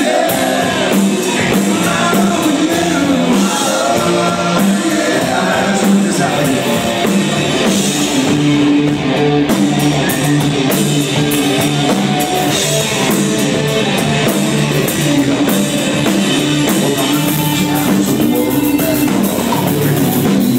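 Live rock band playing a song, with electric guitar, drum kit and singing, loud and continuous.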